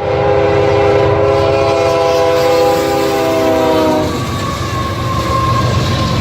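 A diesel freight locomotive's multi-chime air horn sounds one long blast that stops about four seconds in, over the low rumble of the passing Norfolk Southern manifest train. After the horn, a single steady high-pitched tone carries on over the rumble.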